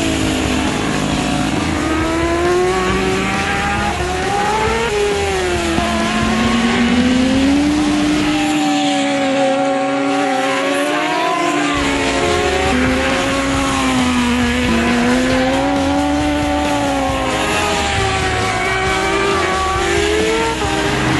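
Racing sport motorcycles at full speed on a circuit, engine notes rising and falling in pitch as they accelerate, shift gear and pass one after another. The low rumble drops out for a few seconds about halfway through.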